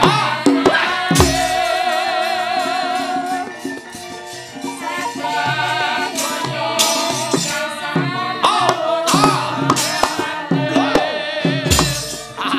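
Javanese gamelan playing battle accompaniment for a wayang kulit shadow-puppet fight, with hand-drum (kendang) strokes and sharp metallic clattering strikes, which are typical of the dalang's kepyak plates. A wavering melody line sounds over the ensemble.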